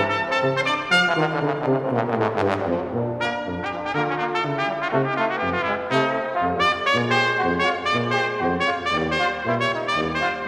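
Background music played by brass instruments, trumpets and trombones, with a tune that moves from note to note.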